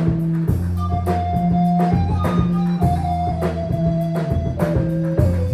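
Music: a band with a drum kit keeping a steady beat under held organ-like keyboard and bass notes.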